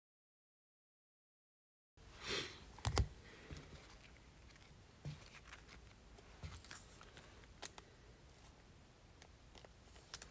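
About two seconds of dead silence, then faint scattered clicks, taps and a short rustle from trading cards being handled and sorted on a table, the loudest click coming about three seconds in.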